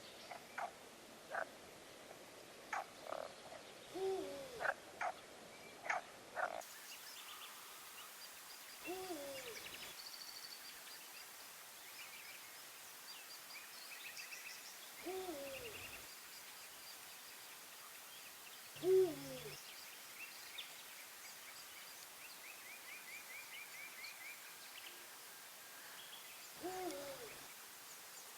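An owl hooting about every six seconds, each hoot a low call that falls in pitch, after a quick run of short frog-like croaks in the first few seconds. Small birds sing faintly throughout.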